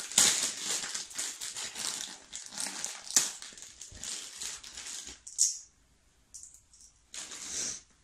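Crinkling plastic packaging being handled and opened, dense for about five seconds, then a few short rustles with pauses between them.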